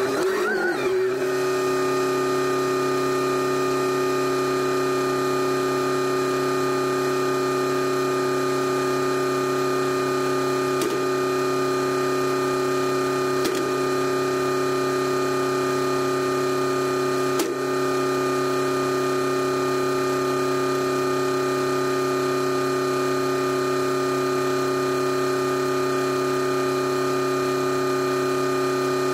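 Telehandler engine running at a steady speed, heard close up from the machine itself. A few faint ticks come through near the middle.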